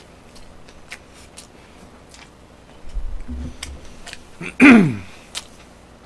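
Faint mouth clicks of someone chewing food close to a microphone. A low bump comes about three seconds in, then a short, loud vocal sound falling in pitch about a second before the end.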